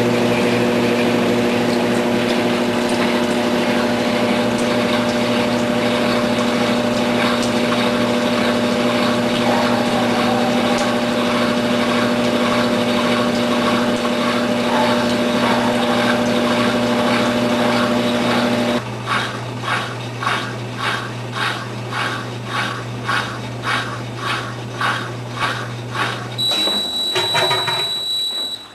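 Brastemp top-load washing machine spinning with a steady motor hum. About two-thirds of the way through the hum stops and a rhythmic pulsing repeats a little faster than once a second as the drum runs down. Near the end a high steady beep sounds for about two seconds, typical of a washer's end-of-cycle signal.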